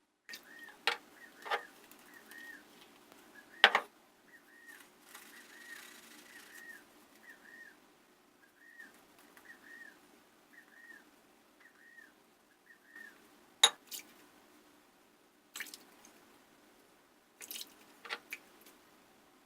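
Shaving at the sink with an Edwin Jagger DE89 double-edge safety razor: water dripping and splashing as the razor is rinsed, with several sharp knocks, the loudest a few seconds in and about two-thirds through. A faint high chirp repeats about twice a second behind it for much of the time.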